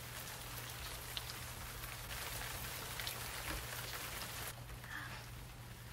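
Steady rain falling outside an open doorway: a dense, even hiss with scattered small drip ticks. The hiss suddenly gets quieter about four and a half seconds in.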